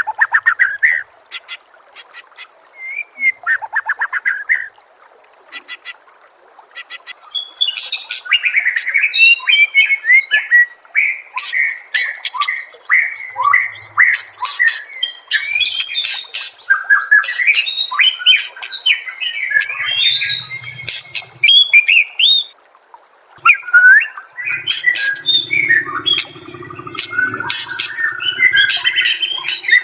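White-rumped shama (murai batu) singing: first rapid runs of sharp ticks and short whistles, then a long run of varied, quickly changing whistled phrases. The song breaks off briefly a little past the middle and then resumes.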